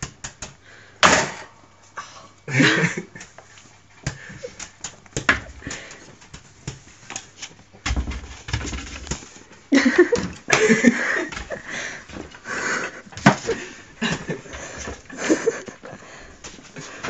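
Push broom brushed and jabbed across carpet with a ferret scrabbling and lunging at it: an irregular run of brushing scrapes and knocks, with louder rough patches now and then.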